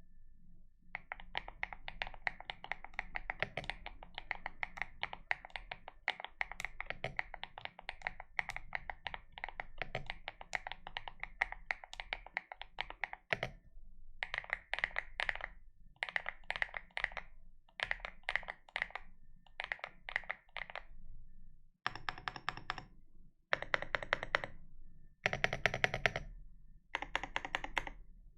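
Typing on an AKKO MU01 mechanical keyboard with HMX EVA switches. A steady run of rapid keystrokes lasts to about halfway, then comes a series of short bursts of fast key presses, each about a second long with brief pauses between. The last few bursts are louder.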